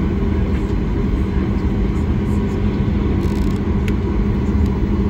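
Cabin noise inside a Ryanair Boeing 737 taxiing after landing: the engines and airframe give a steady low rumble with a constant hum. One faint click sounds near the end.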